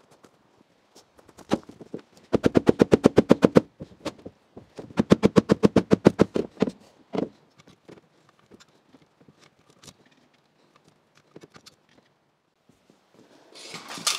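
Hand ratchet clicking rapidly, about ten clicks a second, in two runs of a second and a half to two seconds each, with a few faint clicks between.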